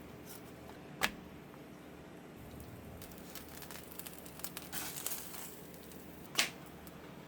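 Kitchen handling noises while cooking: two sharp knocks about five seconds apart, with a run of small clicks and crinkling between them.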